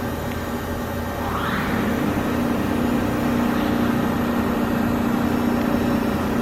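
Mikron HSM-400U 5-axis CNC machining center running. About a second in, a whine rises in pitch and then settles into a steady hum that holds.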